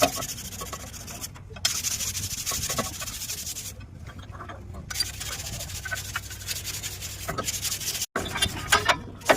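Continuous scraping and rubbing, like abrasive work on a truck brake shoe. It cuts off abruptly a few times.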